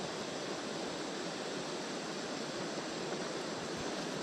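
Steady rushing of a river flowing past.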